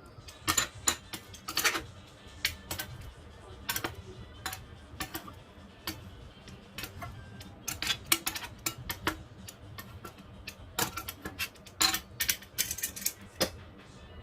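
Irregular sharp clicks and ticks, some in quick clusters, over a faint low steady hum.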